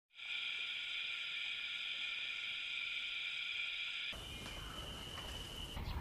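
Steady, high-pitched insect chorus drone. About four seconds in it cuts off abruptly, giving way to a noisier outdoor ambience with a thinner steady whine.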